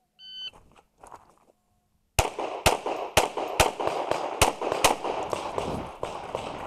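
A short electronic shot-timer beep, the start signal. About two seconds later comes a rapid string of roughly eight shots from a Walther Q5 Match 9mm pistol, about two a second.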